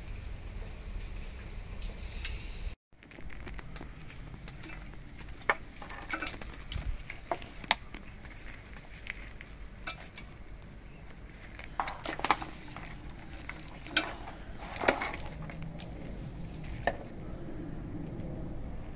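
Scattered small clicks and rustling from hands handling a scooter's wiring harness and plastic connector, with a few sharper ticks.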